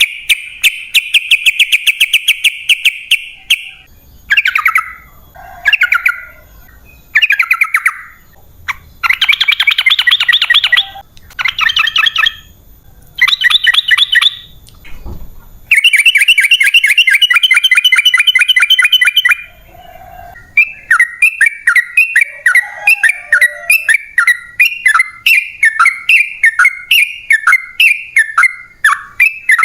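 Yellow-vented bulbul (trucukan) singing loudly in bouts of rapid, chattering trills separated by short pauses, including one long trill of about four seconds. This is the long-trill song ('ropel panjang') used as a lure call. Near the end it switches to a run of short repeated phrases, about two a second.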